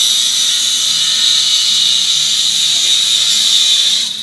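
Handheld angle grinder running with its disc against steel: a loud, steady, high-pitched grinding whine that dips briefly near the end.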